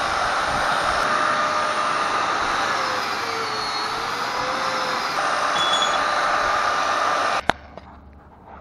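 Handheld angle grinder running and grinding steel, its pitch wavering up and down as the load changes; it shuts off abruptly about seven and a half seconds in.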